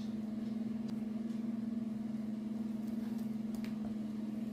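A steady low hum at one pitch, like a small motor or appliance running, with a few faint clicks near the end.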